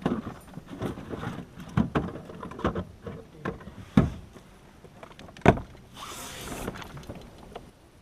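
Irregular knocks and thumps of gear and hands against a plastic fishing kayak's hull, the loudest about two, four and five and a half seconds in, followed by a short hiss around six seconds in.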